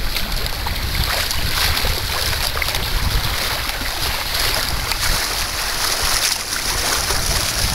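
Wind buffeting the microphone over water rushing and splashing past the hull and pontoon float of a canoe under way at speed. The sound is a steady, loud mix of low rumble and hiss.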